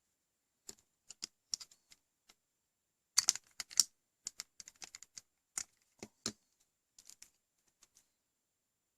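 USB cable plugs being handled and unplugged from a small tester board: a scatter of irregular sharp clicks and taps, loudest in a quick cluster about three seconds in.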